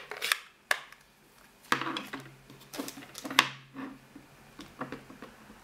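A series of sharp plastic clicks and taps as an ink pad case is opened and a stamp on a clear acrylic block is tapped onto the ink pad, the loudest taps about two and three and a half seconds in.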